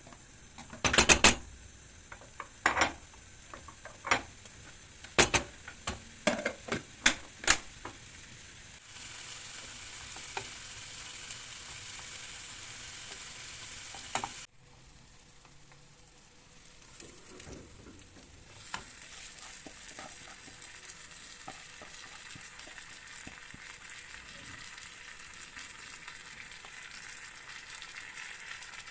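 Food frying in a pan with a steady sizzle, stirred, with a run of sharp knocks over the first several seconds. The sizzle cuts off suddenly about halfway through and comes back fainter, with small clicks of stirring.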